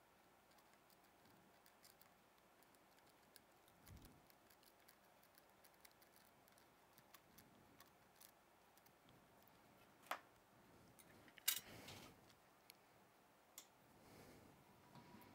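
Near silence: quiet workbench room tone with scattered faint clicks and taps, and two sharper clicks about ten and eleven and a half seconds in.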